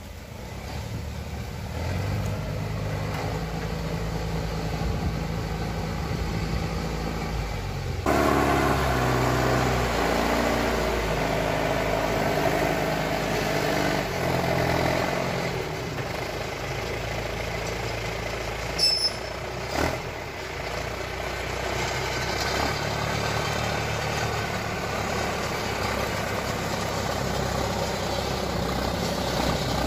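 John Deere forestry skidder's diesel engine running under load, its note rising and falling as the machine moves and pushes logs. Two sharp knocks come a little past halfway.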